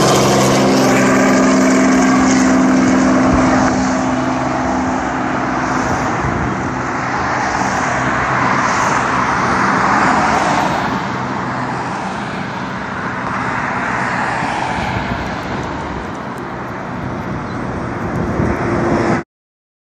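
Robinson R44 helicopter's rotor and engine, loud and steady as it passes low overhead, then fading slowly as it flies away. The sound cuts off sharply just before the end.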